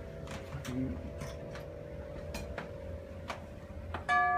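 Grandfather clock ticking, then its tubular chimes begin to strike about four seconds in, with clear ringing bell tones.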